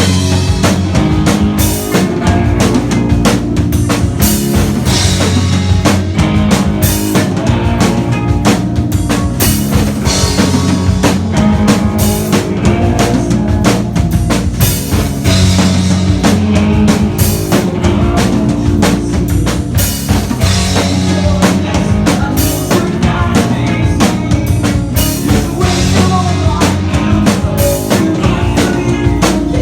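Rock band playing a cover song: a full drum kit hitting steadily over sustained guitar and bass.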